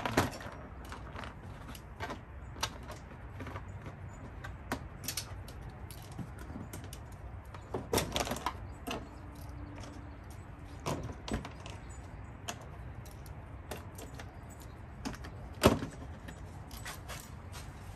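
Plastic push-type retainer clips on a Lexus GX460's engine-bay cover being pressed in and pried up, giving scattered light clicks and snaps, with a small cluster about halfway through and one sharper snap near the end.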